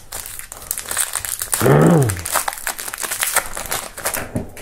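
Plastic trading card pack wrapper crinkling and crackling as it is handled and opened by hand. A short vocal sound that rises and falls in pitch breaks in about two seconds in.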